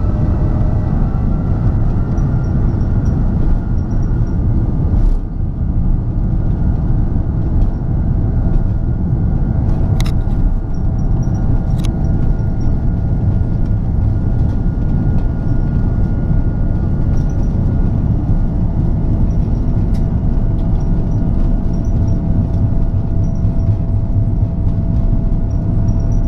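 Inside the cabin of an Airbus A330 taxiing: a steady low rumble from the engines and rolling gear, with an even engine whine on top. A few faint clicks come through now and then.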